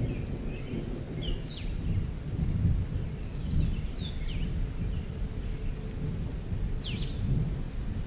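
Forest ambience: a low, rolling rumble with short, sharp bird chirps every second or two.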